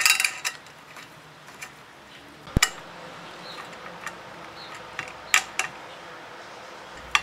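Small metal parts clinking and clicking as a nut, washer and ring terminal are fitted onto the terminal stud of a welder's rectifier plate: a cluster of clinks at the start, then single sharp clicks about two and a half seconds in, twice around five and a half seconds, and once near the end.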